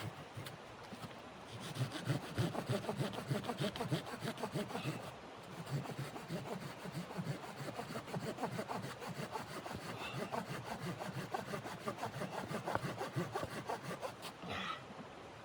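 A hand saw cutting through wood in a long run of rhythmic strokes, starting about a second and a half in and stopping shortly before the end.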